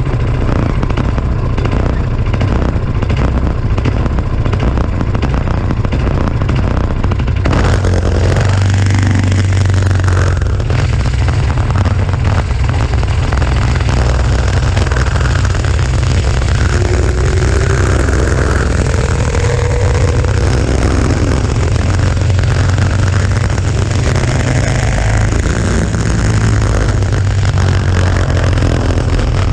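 Go-kart's 5 hp Tecumseh single-cylinder engine running under way, loud and steady with a deep rumble, picking up a brighter edge about seven seconds in.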